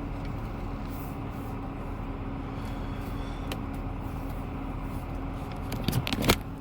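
A car running steadily: an even engine hum under a wash of road noise, with a few sharp knocks near the end.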